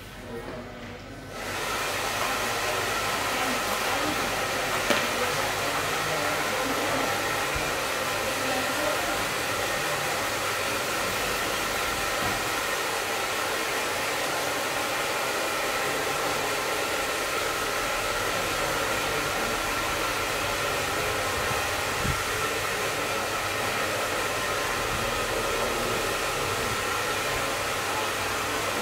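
Hair dryer running steadily with an even blowing noise and a faint motor whine, switched on about a second and a half in.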